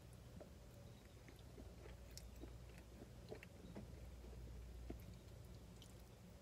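Faint chewing of a mouthful of pasta, with small scattered mouth clicks, over a low steady hum.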